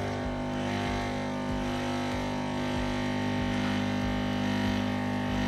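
Coffee machine running with a steady hum while it brews.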